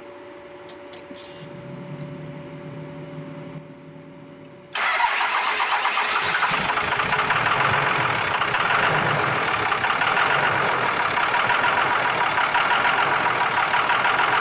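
5.9L Cummins inline-six turbo-diesel being cranked and then, about five seconds in, running loudly and steadily at idle with diesel clatter. It is the engine firing after air has been bled from the injector lines.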